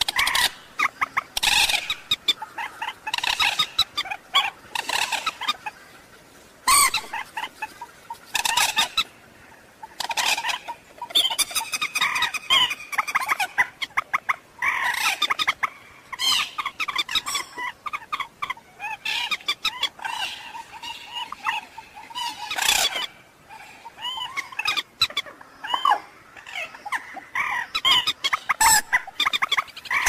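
Common moorhen calling: many short, loud clucking calls in irregular bunches with brief pauses, a bird-call recording of the kind played as a lure for trapping.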